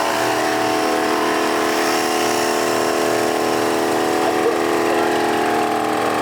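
Portable air compressor running steadily with a constant motor whine, inflating a truck tire after off-roading.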